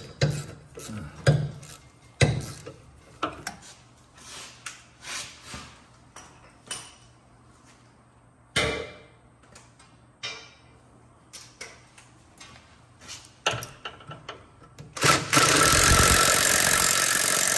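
Scattered clinks and knocks of hand tools and a socket extension being handled. About fifteen seconds in, a small impact gun runs for about three seconds, driving a 12 mm bolt into the brake-line bracket hole and cleaning paint out of the threads.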